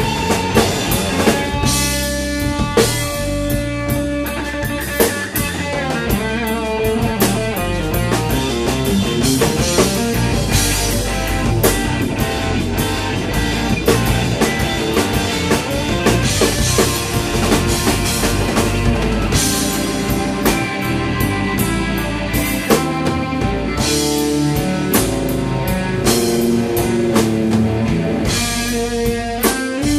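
Live instrumental blues-rock band playing: overdriven electric lead guitar over bass guitar, drum kit and Rhodes electric piano.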